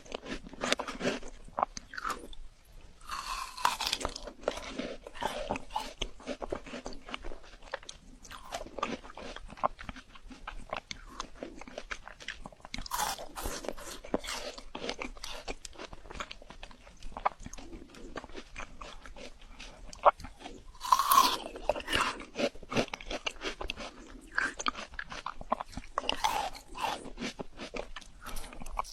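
Frozen fruit being bitten and chewed, with bursts of crisp crunching and short pauses between mouthfuls; the sharpest crunch comes about twenty seconds in.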